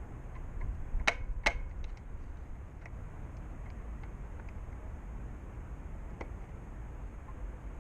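Two sharp clicks about half a second apart, then a few faint ticks, from hand work on the road bike's handlebar and stem, over a steady low rumble.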